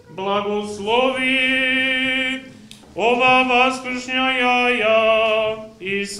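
Male Orthodox liturgical chanting: two long phrases of held notes, each beginning with a rising slide, with a short break about two and a half seconds in.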